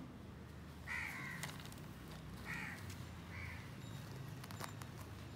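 Three short, high animal cries, about a second in, at two and a half seconds and near three and a half seconds, over a steady low hum.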